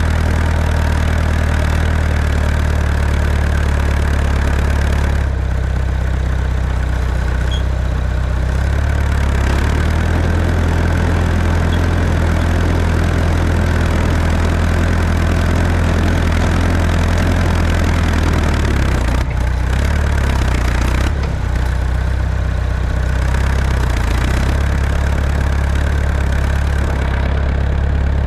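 Tractor engine running steadily while plowing compacted snow and ice, its pitch shifting a few times, with some clatter from the machine.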